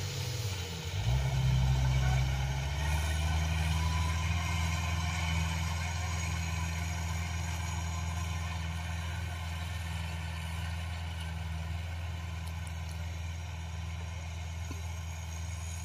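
Engine of a small tracked carrier loaded with rice sacks, revving up about a second in and then running steadily as it drives off, slowly fading.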